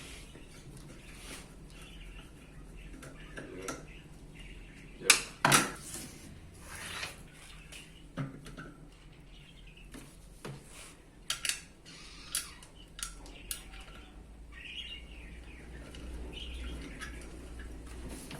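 Parts of an electric fan being handled and fitted together during assembly: scattered clicks and knocks, the loudest two about five seconds in, and a run of sharp clicks between about eleven and thirteen seconds.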